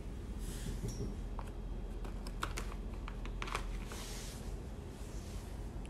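Light clicks and plastic rustling as a hand handles a clear plastic tag on a sneaker, with several quick clicks bunched in the middle.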